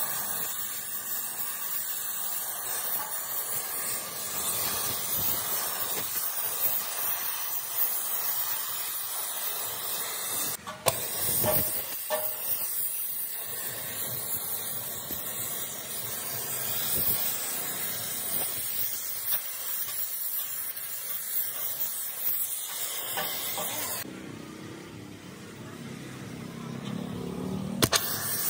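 Gas torch flame hissing steadily as it heats the trunnion inside a Massey Ferguson tractor's cast-iron differential housing to free it. The hiss breaks off briefly about eleven seconds in and is quieter for a few seconds near the end.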